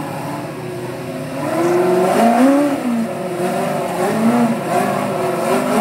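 Rock-crawling race buggy's engine revving up and down in repeated bursts as it works over the rocks, getting louder about a second and a half in.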